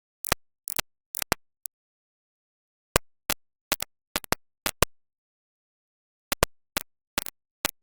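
About twenty short, sharp clicks and knocks in irregular clusters, with dead silence between them and pauses of about a second after the first second and again after the fifth.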